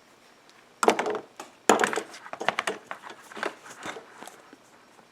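Irregular clicks, taps and rustling from small parts of an old ignition switch and a wire being handled and fitted together. It starts about a second in and dies away near the end.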